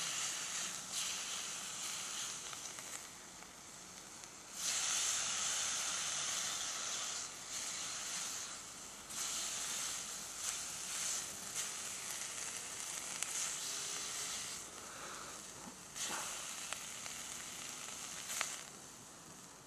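Wagyu beef sizzling on a hot iron griddle plate over a campfire as it is turned with chopsticks. The sizzle swells sharply about four and a half, nine and sixteen seconds in.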